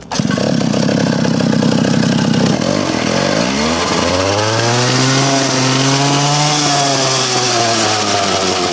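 Two-stroke chainsaw engine powering a homemade drift trike, cutting in abruptly and running, then revving up from about three seconds in, holding high and easing off slightly near the end.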